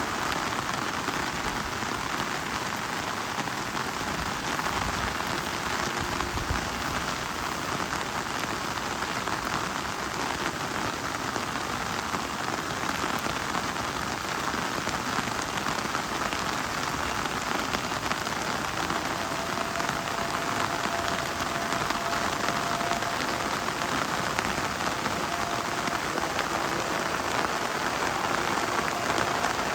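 Steady rain falling, a dense even patter of drops on leaves and surfaces. A faint steady tone comes in about two-thirds of the way through.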